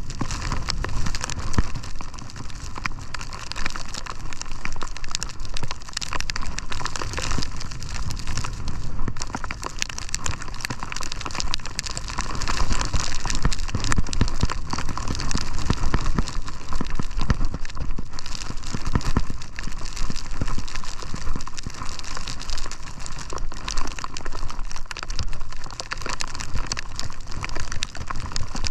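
Skis sliding and scraping over snow on a descent, with wind rushing over the camera microphone: a continuous crackly noise with no break, a little louder from about halfway through.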